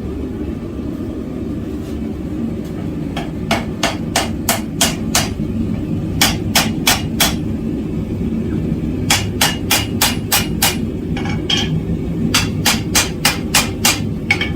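Hammer blows on hot steel at the anvil, setting a forge weld on a tacked scarf joint. The blows come in quick bursts of five to seven, starting a few seconds in, over a steady low rumble.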